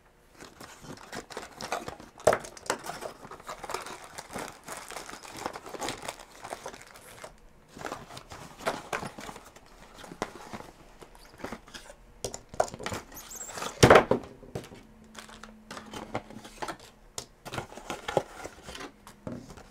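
Plastic packaging crinkling and rustling as a kit package is opened and its parts taken out, with small clicks and knocks throughout and one louder knock a little before two-thirds of the way through.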